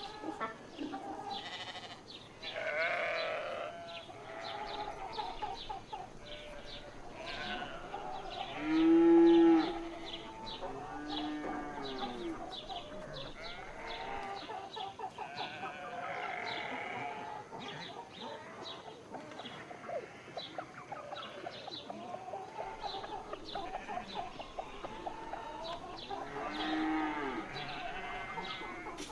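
Barnyard ambience: sheep bleating again and again, with several calls overlapping and the loudest about nine seconds in, over a busy background of short chirping sounds.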